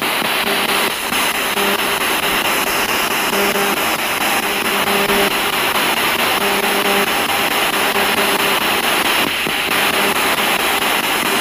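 Handheld spirit box (ghost box) radio scanning through stations, giving a loud, steady static hiss broken by brief chopped snatches of broadcast tone.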